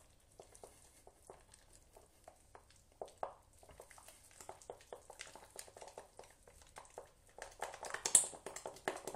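Wooden spatula beating choux pastry dough in a glass bowl: quiet, irregular taps and sticky slaps against the glass, becoming faster and louder near the end as the eggs are worked in toward the ribbon stage.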